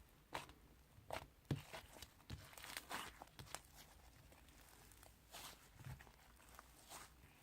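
Slime being handled and squished by hand: faint, irregular crackles, clicks and soft pops.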